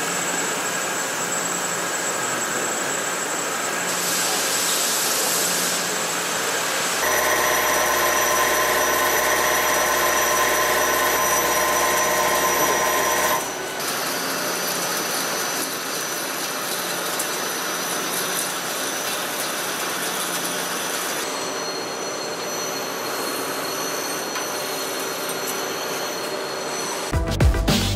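Hwacheon Hi-TECH 230BXL CNC turning center cutting carbon steel: a steady run of machining noise with fixed tool tones, from finish boring of an inner diameter to turn-mill drilling and tapping with a driven tool. The sound changes abruptly several times between operations, and music comes in just before the end.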